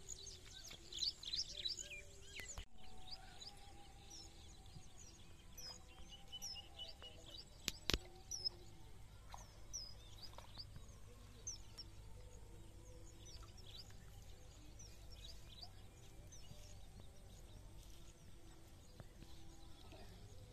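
Small birds chirping, a steady scatter of short high calls over faint outdoor background noise, with one sharp click about eight seconds in.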